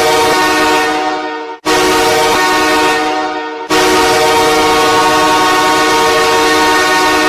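Ice hockey arena goal horn, HC Donbass Donetsk's recorded horn, sounding a steady multi-tone chord in three blasts. Two blasts of about two seconds each are followed by a longer held blast.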